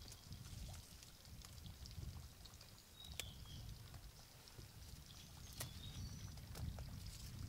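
Faint outdoor ambience: a low rumble, a few short high chirps and a couple of sharp clicks.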